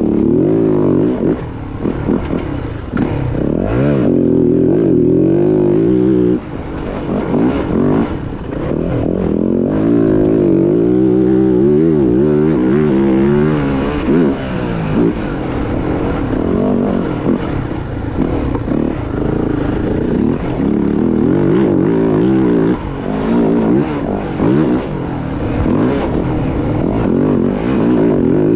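Dirt bike engine being ridden hard, its pitch rising and falling over and over as the throttle is opened and closed, with brief drops where the throttle is shut off, one about six seconds in.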